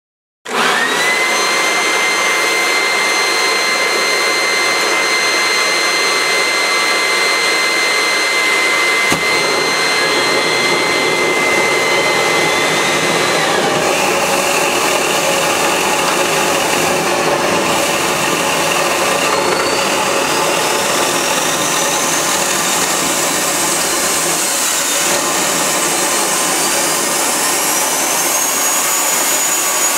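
Homemade turbocharger gas turbine running on canola oil, being started with a leaf blower held to its compressor inlet. A steady blower whine comes first, and a low combustion rumble joins about nine seconds in. After that the turbo's whine rises in pitch in several steps as it spools up and settles into a high, steady whine near the end.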